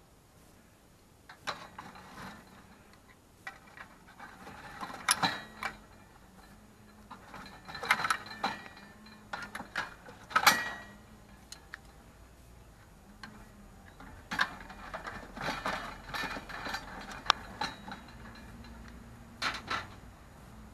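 Irregular clicks and clatters of small hard objects being handled and knocked together, with several louder knocks in the middle, over a faint steady hum.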